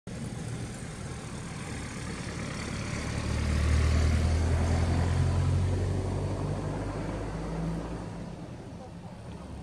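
A motor vehicle driving past, its engine rumble growing louder to a peak about four seconds in and then slowly fading.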